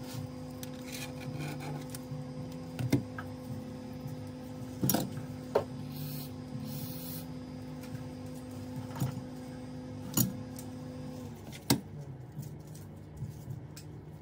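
Scattered short clicks and knocks of a utility knife and a tablet being handled and set down on a work table, over a steady low hum that stops about eleven seconds in.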